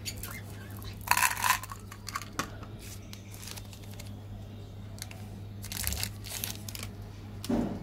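Crinkling of a chocolate wafer bar's foil wrapper as it is picked up and turned in the hands, in short bursts, the loudest about a second in. A steady low hum runs underneath.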